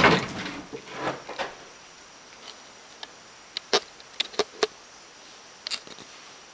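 A few light, sharp knocks and clicks: a quick cluster of four or five a little past halfway, and one more near the end.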